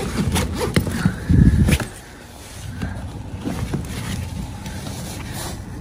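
Hands rummaging through a soft fabric travel bag: rustling with a cluster of knocks and thumps in the first two seconds, then quieter rustling and small clicks.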